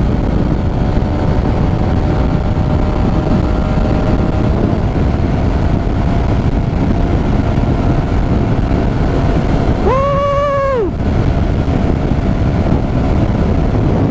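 Honda GTR 150 motorcycle running at riding speed, its engine mixed with a steady low rumble of wind and road noise. A vehicle horn sounds once, about ten seconds in, for about a second.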